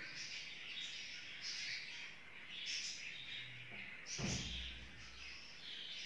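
Pet budgerigars chirping and chattering repeatedly, with a dull thump a little after four seconds in.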